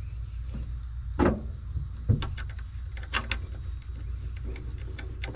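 Scattered clicks and knocks of the instrument cluster being handled and fitted back into the 1965 Corvair's dashboard, the strongest about a second in and two seconds in, with a quick run of clicks around three seconds. Under them run a steady low hum and a steady high-pitched drone.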